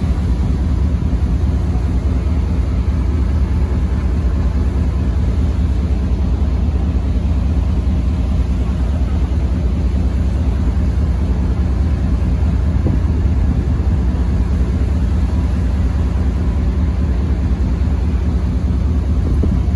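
Steady low drone of a passenger ferry's engines, heard aboard on the passenger deck.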